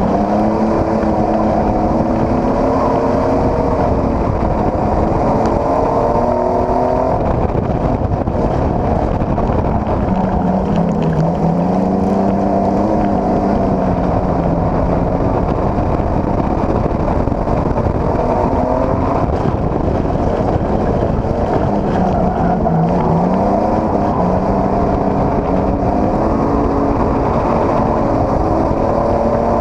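Dirt-track stock car's engine racing, heard from inside the cockpit: loud, its pitch climbing and then falling back in a slow cycle about every twelve seconds as the car laps the oval, over a heavy rumble of mechanical and road noise.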